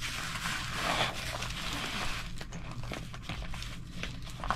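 Clear plastic sleeve crinkling and rustling as a diamond painting canvas is worked into it by hand. The rustling is busiest for the first two seconds or so, then turns into fainter scattered crackles and clicks.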